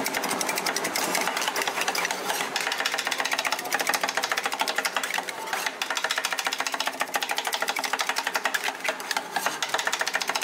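Metal spatulas chopping and tapping rapidly on a steel cold plate to mix and break up rolled ice cream: a fast, even clatter of metal on metal.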